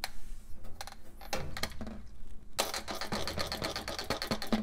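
Trigger squirt bottle spraying soapy water onto a gas line fitting to check for leaks: a short spray at the start, then a quick run of rapid squirts with clicking trigger strokes over the last two seconds.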